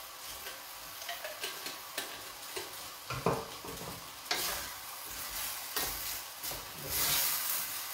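Minced ossobuco meat browning in a stainless steel pot, sizzling, while a wooden spoon stirs it with short scrapes and knocks against the pot. The sizzle swells about halfway through and again near the end.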